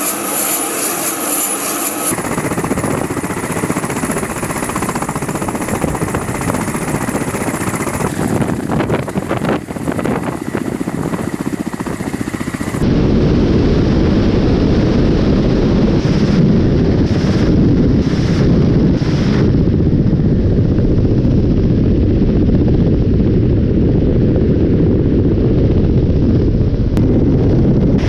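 Kamov Ka-52 attack helicopter: its twin turboshaft engines and coaxial rotors running, first with a steady high turbine whine. About 13 s in it switches abruptly to a louder, dense low rush of rotor and wind noise heard from a camera mounted on the airframe in flight, with four brief bursts of hiss a few seconds later.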